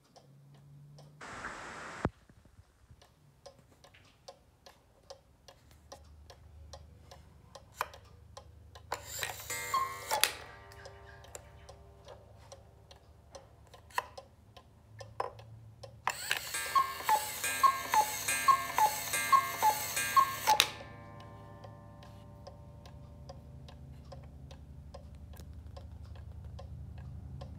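Black Forest cuckoo clock ticking fast while its hand is moved round, setting off the cuckoo: a single two-note cuckoo call with the bellows rushing about ten seconds in, then a louder run of about six falling two-note calls over the bellows. A brief rustle of handling near the start ends in a sharp click.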